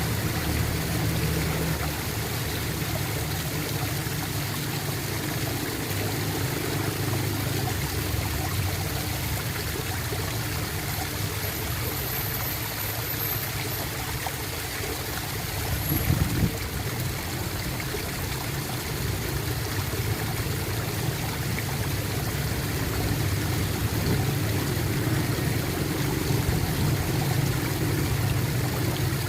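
Flowing water gurgling and trickling steadily, with one short louder moment a little past halfway.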